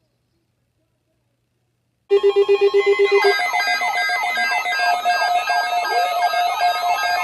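Near silence for about two seconds, then loud electronic alert tones start abruptly: a rapid beeping of about eight beeps a second for just over a second, followed by several alarm tones layered together, steady beeps mixed with repeated quick downward chirps.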